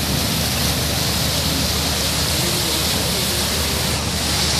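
Steady rushing wash of muddy floodwater on a road, with cars and motorcycles wading through it.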